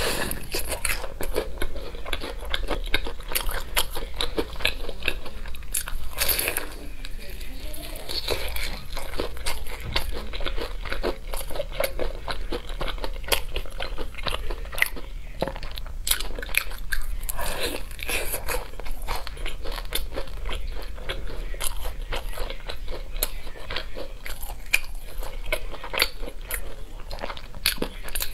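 Close-up biting and chewing of sauce-glazed fried chicken drumsticks: crisp crunches and crackles from the coating, with wet mouth and chewing sounds.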